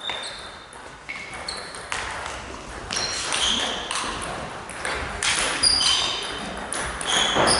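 Table tennis hall sounds between points: scattered sharp clicks of celluloid balls and bats, and short high-pitched squeaks.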